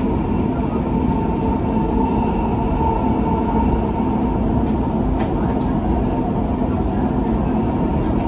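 Dubai Metro train running at speed on its elevated track, heard from inside the passenger car: a steady rumble with a faint steady whine above it.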